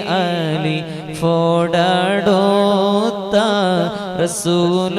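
Solo male voice singing a Malayalam Islamic devotional song (tawassul bait) in long, ornamented, melismatic lines over a steady low drone.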